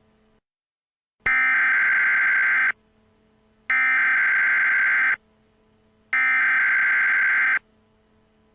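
Emergency Alert System header: three identical bursts of buzzing digital data tones, each about a second and a half long, about a second apart, with a faint steady hum between them.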